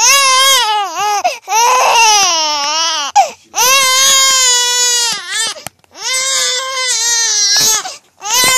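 Infant crying in about four long, loud cries in a row, each broken off by a short catch of breath, rising and falling in pitch: a hungry baby waiting for her bottle.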